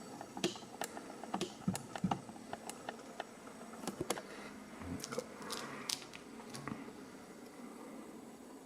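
Irregular small metal clicks and taps, with a brief scrape about halfway through, as an ABUS Extreme padlock is taken apart by hand and tool.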